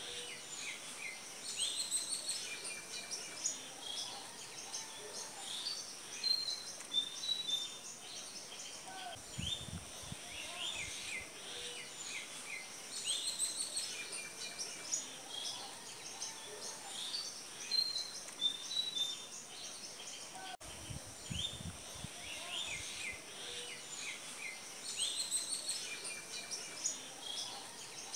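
A chorus of small birds chirping and calling, many short high chirps overlapping. The same stretch of chirping repeats about every eleven seconds, a looped recording, with a brief low rumble twice.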